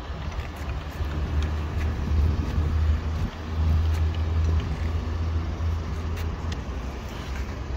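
A vehicle engine idling: a steady low hum, with a few faint clicks over it.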